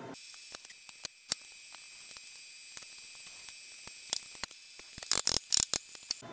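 Faint steady hiss with scattered light clicks, then a quick run of louder clicks about five seconds in, as the milling machine's head controls are handled.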